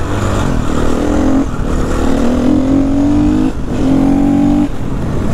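2016 Husqvarna FE 350 four-stroke single-cylinder dirt bike engine accelerating under load. Its pitch climbs and then drops at each gear change, three times in a row: upshifting through the gears.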